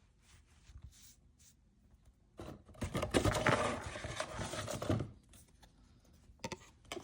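Blind box packaging being handled, crinkling and rustling for about two and a half seconds from near the middle, with a few light taps near the end.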